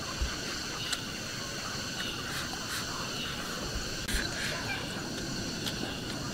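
Steady insect chorus, a high even chirring. Scattered sharp clicks from chopsticks against a ceramic rice bowl and eating sounds run over it.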